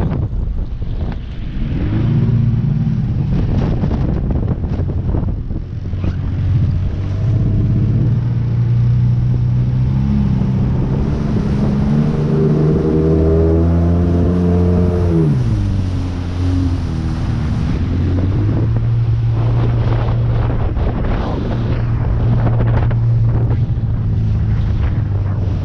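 An engine running, its pitch climbing and then dropping sharply about fifteen seconds in, with wind buffeting the microphone.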